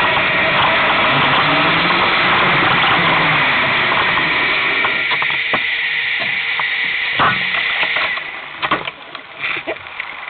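2009 Brammo Enertia electric motorcycle under way: wind rushing over the microphone, with a steady high whine and lower tones that glide up and down with speed. About eight seconds in the rush falls away, leaving a few scattered clicks.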